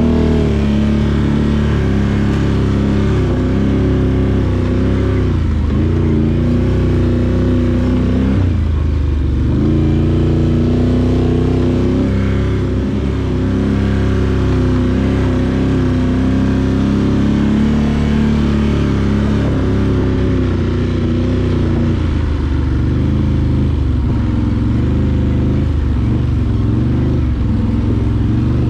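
Can-Am Outlander 850 ATV's V-twin engine running on the trail, its pitch rising and falling as the throttle is opened and eased off.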